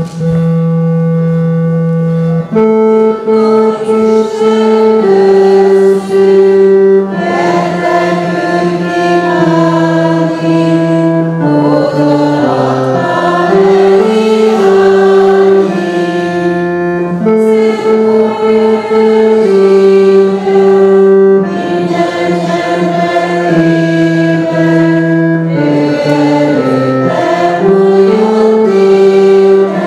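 A congregation singing a slow hymn in unison, with an organ accompanying in long held chords.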